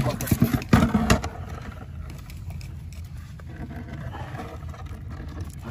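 Long metal tongs knocking and scraping against rock in a tide pool, several sharp clacks in the first second or so, then only a low, steady background rumble.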